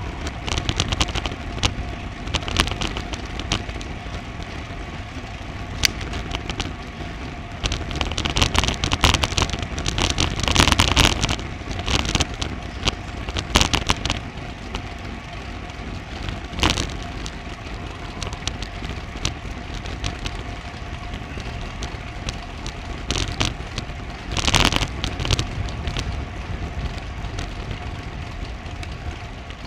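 Wind buffeting and road rumble on the microphone of an action camera riding on a bicycle during a road climb. Frequent crackling knocks come from road vibration, with louder gusty stretches about eight to eleven seconds in and again near twenty-five seconds. A faint steady whine sits underneath.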